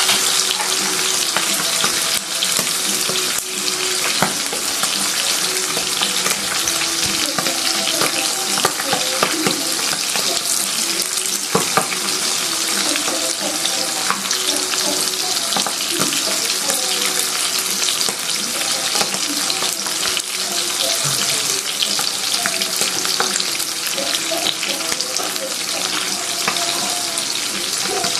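Hot oil sizzling steadily around two split dried milkfish (daing na bangus) frying in a pan, with scattered sharp crackles and pops.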